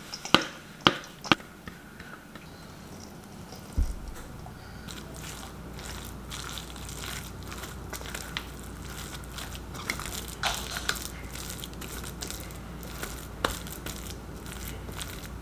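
Spatula tapping and scraping chopped carrot out of a plastic food processor bowl into a stainless steel mixing bowl, with a few sharp knocks at the start, then scraping and squishing as a wet filling with carrot and corn is stirred in the bowl. A low steady hum comes in about four seconds in.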